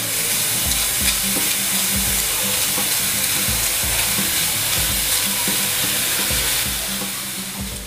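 Grated red pumpkin sizzling in a hot stainless steel pan while a steel spoon stirs it round and scrapes the pan, the pumpkin being roasted on the gas until half cooked. The sound eases off a little near the end.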